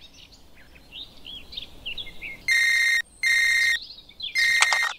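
Mobile phone ringtone: a steady electronic tone sounding in pulses of about half a second, three times in the second half. Faint bird chirps come before it.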